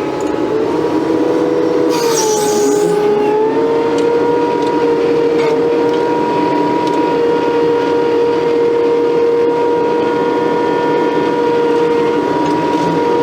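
Case TV450 skid steer's diesel engine and hydraulics running at steady high revs, heard from inside the cab. The pitch dips briefly about two seconds in, with a short hiss, then holds steady.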